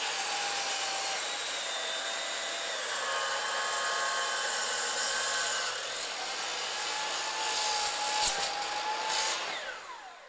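DeWalt sliding miter saw (chop saw) with an old blade cutting through a weathered wooden fence post, the motor whining steadily under load, with a few sharp snaps about eight seconds in. Near the end the saw is switched off and the blade winds down, its pitch falling away.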